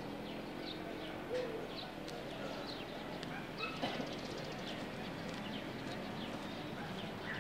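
Outdoor ambience with birds chirping in short, repeated calls over a steady background hum, the calls bunching briefly about four seconds in.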